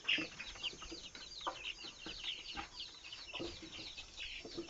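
Chickens clucking and peeping, a busy run of many short, high, falling chirps.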